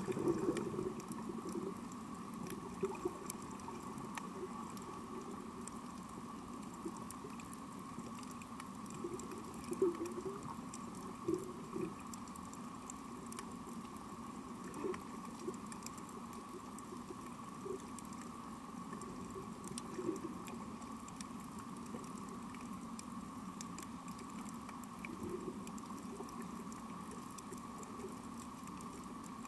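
Underwater coral reef soundscape: a continuous crackle of scattered fine clicks, typical of snapping shrimp, over a steady hum, with a few short low pulses about ten and twenty seconds in.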